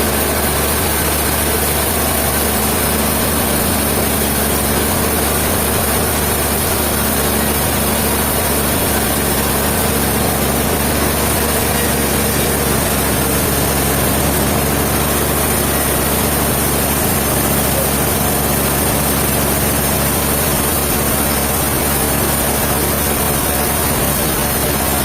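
Heavy engine-driven machinery running steadily at a constant speed, a low hum under an even mechanical noise, with no change in pitch or load.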